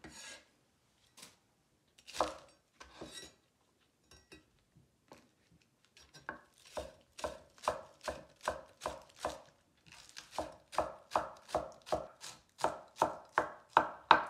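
Chinese cleaver chopping green onions on a wooden cutting board. A few scattered knocks at first, then from about halfway a steady run of chops, a little more than two a second.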